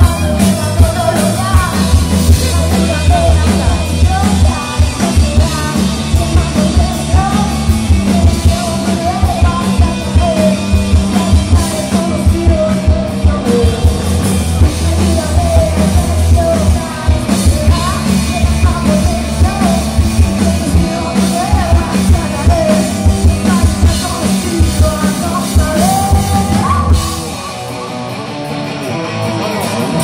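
Live rock band playing loud: a woman singing over electric guitar and drums. About 27 seconds in the heavy low end drops out and the music turns quieter.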